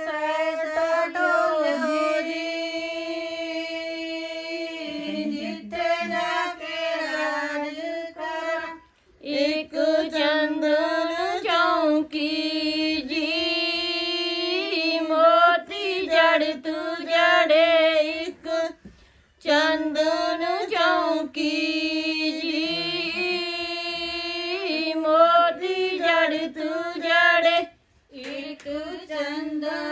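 Women singing a Punjabi suhag, a traditional wedding folk song of the bride's family, unaccompanied and in unison. Long, drawn-out sung lines break off in short pauses about every ten seconds.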